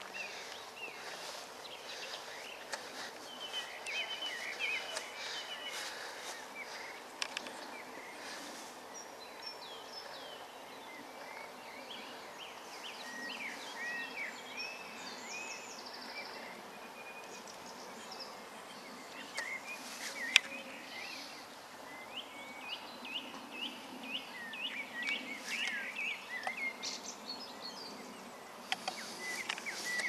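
Several songbirds singing: many short whistled and chirping notes, busiest in the second half, over a steady faint background hum. A single sharp click, the loudest sound, comes about two-thirds of the way through.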